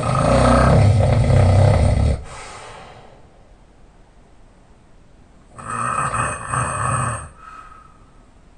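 Loud open-mouthed snoring from a sleeper lying on their back: a long snore of about two seconds at the start, trailing off into a softer breath, then a second, slightly shorter snore about five and a half seconds in.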